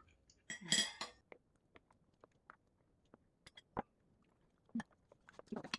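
Quiet eating at a table: chewing and mouth sounds with scattered sharp clicks of a spoon or cutlery, and a short louder rustle or burst about a second in.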